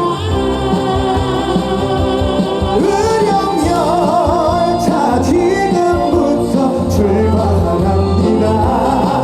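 Instrumental intro of a Korean trot song played by a live band over a stage PA, with a steady beat and a lead melody wavering in pitch.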